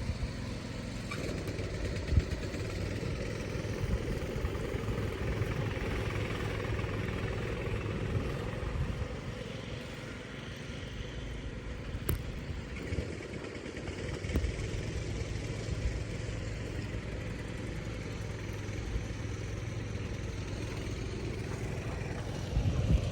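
A steady, low engine-like hum with a rumble of background noise and a few low thumps.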